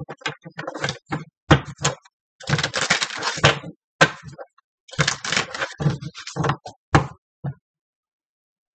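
Tarot cards being shuffled and handled on a table: a run of rustling shuffles and sharp knocks and taps that stops about seven and a half seconds in.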